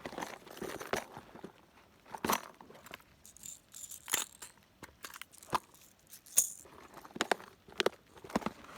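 Fishing tackle being handled while a lure is swapped: irregular small clicks and knocks with short jingling rattles, two of them brighter, a few seconds apart.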